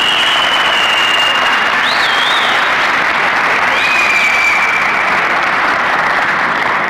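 Arena crowd applauding steadily, with loud whistling over the clapping in long held notes that rise and fall.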